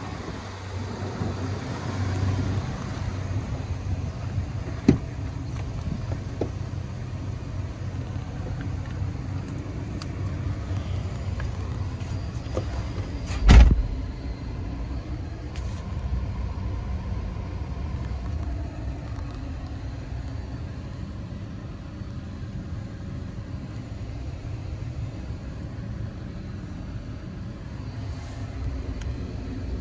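Ford 6.7 L Power Stroke V8 turbodiesel idling with a steady low hum. There is a sharp click about five seconds in, and about halfway through a heavy thump of the truck's cab door shutting.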